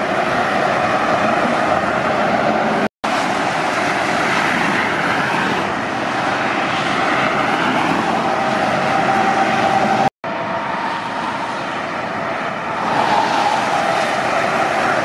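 Heavy lorries and other traffic passing on a motorway: a steady rush of tyre noise and diesel engines. It drops out briefly twice at cuts between shots.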